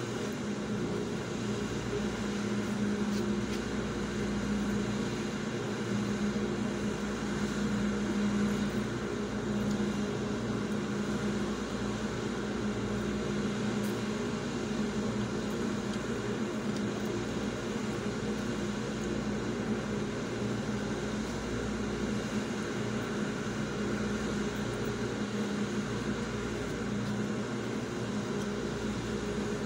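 Steady, unchanging mechanical hum with a low drone, heard from inside a parked vehicle with its engine and air conditioning running.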